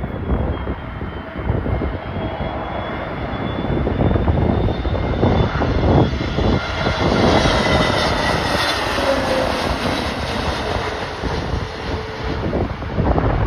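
Jet airliner on landing approach passing close by, its engine whine and rush swelling to a peak about two-thirds of the way through, with the pitch dropping slightly as it goes past. Gusty wind buffets the microphone throughout.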